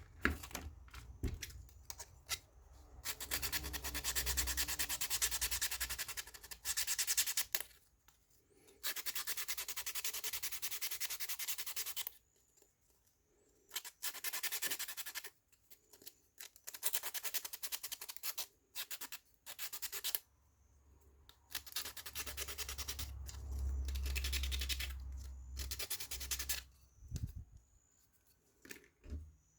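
Hand rubbing on the inner surfaces of laser-cut wooden puzzle-box pieces, in about six bursts of rapid back-and-forth strokes, each a few seconds long with short pauses between.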